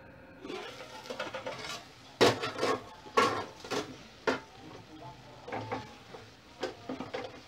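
A wooden spoon stirring beans in an aluminium cooking pot, knocking sharply against the pot several times, with a hiss of cooking from the open pot starting about half a second in.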